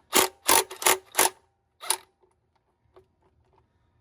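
Impact wrench fired in five short bursts on a stuck oil drain plug, about three a second, the last about two seconds in.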